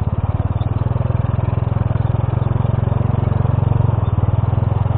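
Honda C70 motorcycle's small single-cylinder four-stroke engine running steadily under light throttle while riding over a gravel track, close to the handlebars.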